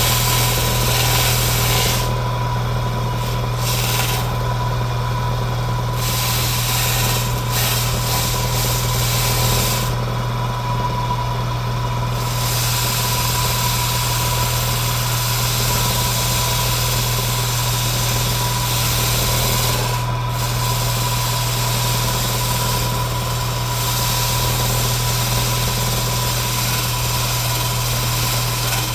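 Electric power tool running steadily with a low hum and a steady whine, working a template. The higher hiss of the cutting or sanding drops away briefly several times.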